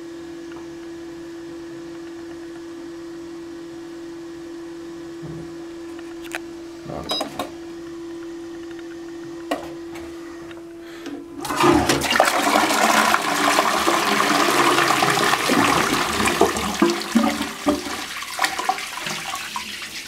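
A steady low hum with a few light knocks, then a little past halfway the lever flush of a Balterley Beo Regent close-coupled toilet lets go. Water rushes loudly from the cistern through the bowl for about eight seconds.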